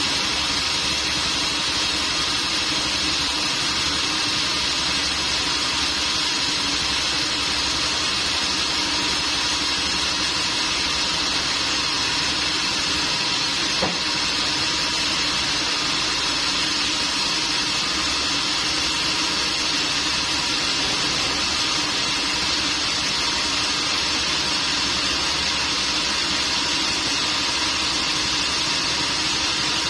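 Sawmill machinery running steadily with a constant motor drone, and a single sharp click about halfway through.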